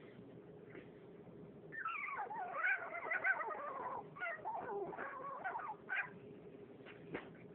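French bulldog whimpering for attention: a long run of high, wavering whines beginning about two seconds in, then a few short whimpers near the end.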